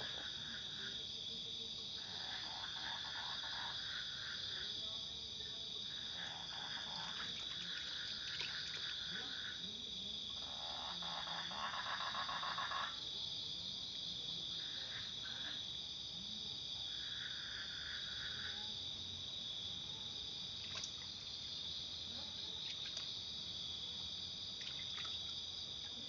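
Frogs calling in repeated bursts of rapid, pulsed croaking, each one to three seconds long, about six times, the longest and loudest near the middle. Beneath them runs a steady high trilling of night insects.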